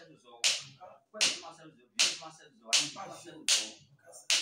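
Steady rhythmic hand clapping by a small group, six sharp claps about three quarters of a second apart, with voices chanting between them.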